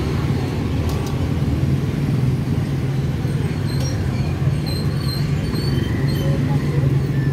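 Steady low rumble of motor traffic and engines.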